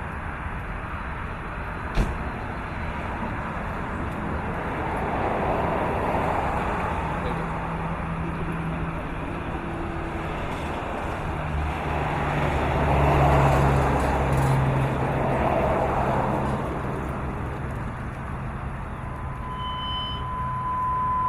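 Outdoor vehicle and traffic noise: a low engine hum sets in about a third of the way in and swells past the middle. Near the end a steady high beep sounds, a fire radio's alert tone ahead of a dispatch call.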